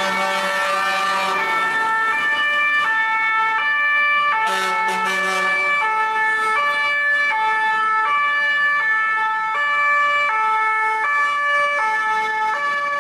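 Two-tone emergency vehicle sirens, with high and low notes alternating about every 0.7 s and more than one siren overlapping. Twice, near the start and about four and a half seconds in, a second-long rush of noise with a low tone rises under the sirens.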